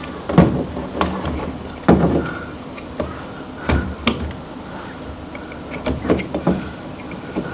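Six or so irregular knocks and clunks from hands-on work, spaced a second or two apart.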